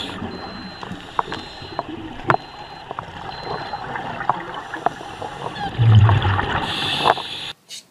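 Underwater sound of a scuba diver breathing through a regulator: bubbles gurgling, with scattered sharp clicks. A louder rush of bubbles comes about six seconds in, and the sound cuts off abruptly near the end.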